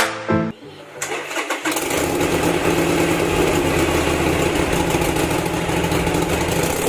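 Harley-Davidson SuperLow's air-cooled V-twin being cranked, catching about a second and a half in and then idling steadily, the start after its fuel pump was repaired.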